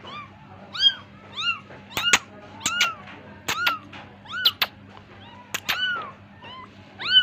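A young kitten mewing over and over: short, high-pitched mews, roughly one or two a second, each rising and then falling in pitch. Several sharp clicks fall between the mews.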